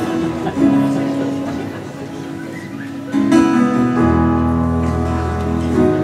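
Acoustic guitar strumming chords live, the notes ringing on. A fuller, louder chord comes in about three seconds in, and a low held note joins a second later.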